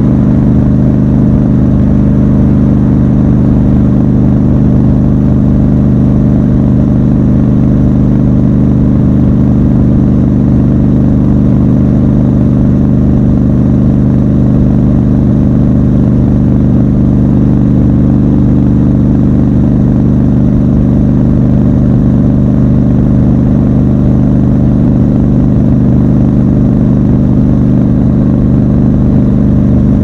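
Triumph Scrambler 1200 XC's parallel-twin engine running at steady revs while the motorcycle cruises, its note holding constant with no revving up or down.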